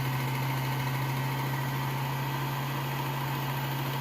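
Work Sharp Ken Onion Edition belt sharpener running steadily with a leather stropping belt fitted: an even motor hum with a strong low drone.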